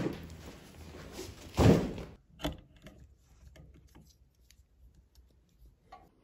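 Handling noise: rustling with a loud thump about a second and a half in, then scattered small clicks and taps as charging cables are handled at a USB charger.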